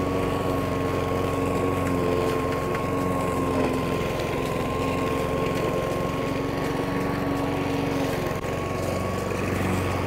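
Hyundai petrol lawn mower with a 5.2 hp overhead-valve engine running steadily while mowing tall grass.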